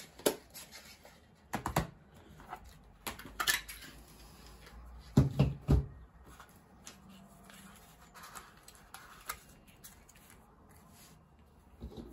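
Paper and card being handled on a craft table: rustling and sliding with scattered taps and clicks. The loudest sound is a couple of thumps on the tabletop about five seconds in.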